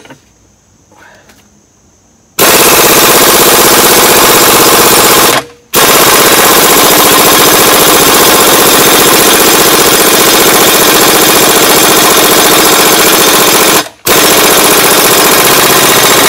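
Air impact wrench hammering in rapid rattling bursts on a seized hex shaft in a Gravely cultivator gearbox. It starts about two seconds in, runs in three long bursts with two short breaks, and the shaft does not break loose.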